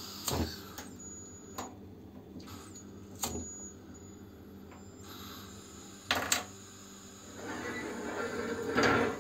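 A few separate sharp clicks from a gas hob as its burner is turned on and lit. Near the end comes a longer scraping and rattling as the stainless steel pot is shifted on the burner grate.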